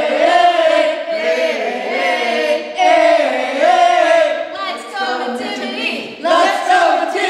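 A group of voices singing together without accompaniment, in phrases broken by short pauses.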